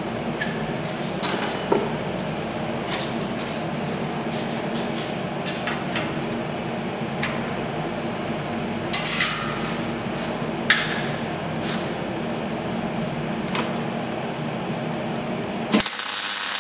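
A steady hum with scattered clicks and knocks from steel clamps and tubes being handled; near the end a MIG welding arc on the steel tube starts, a loud, even crackling hiss.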